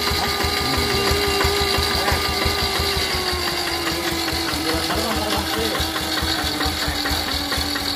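Yanmar TF65 single-cylinder diesel engine running with a rapid, even knocking beat, carrying a steady 'nging' whine that slides lower between about three and six seconds in.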